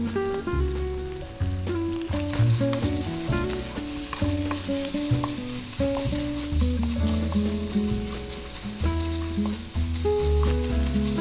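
Shredded tuna frying in a pan, a steady sizzle with a wooden spatula scraping as it is stirred, under background music with a bass line and a melody.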